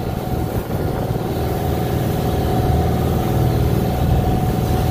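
Fishing boat's engine running steadily under way, with water rushing and splashing along the hull.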